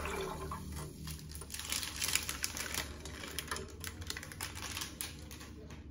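Bundle of dry spaghetti being handled: a quick, irregular run of light clicks and rustles as the stiff strands knock against each other.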